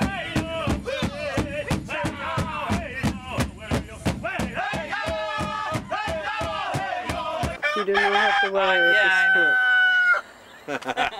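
Large rawhide hand drum beaten in a steady pulse by several drummers, about four beats a second, with singing over it. About two-thirds of the way in the drumming stops and a rooster crows.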